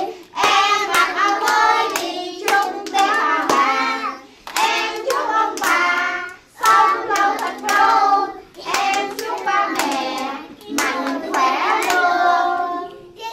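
A group of young children singing a Vietnamese Tết (Lunar New Year) song together, clapping their hands along with it. The singing comes in phrases with short breaks.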